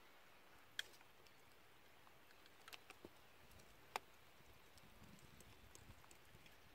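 Near silence outdoors, broken by a few faint sharp clicks: one about a second in, a small cluster near three seconds, and one at about four seconds.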